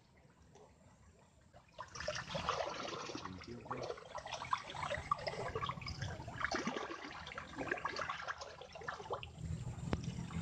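A hand sloshing and splashing about in shallow muddy water, feeling into an eel's burrow, starting about two seconds in with irregular wet spatters.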